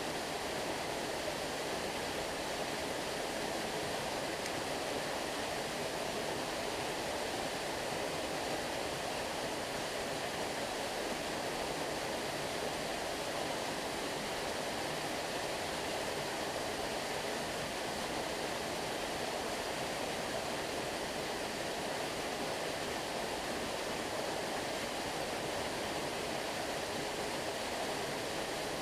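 Small waterfall: water pouring and splashing in a steady, unbroken rush.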